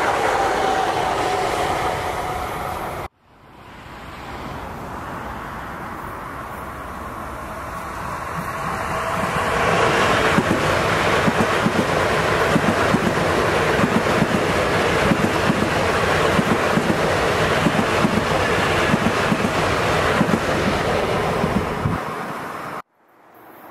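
Metro-North M8 electric commuter trains passing. The first train's tail fades and cuts off suddenly about three seconds in. A second train then approaches, builds up and passes close by with a steady clatter of wheels over the rail joints, and the sound cuts off abruptly near the end.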